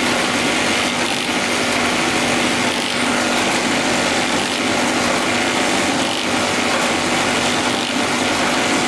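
Newlong bag-making machine running: belt conveyors, rollers and industrial sewing head in continuous operation. It makes a steady mechanical clatter over a constant hum.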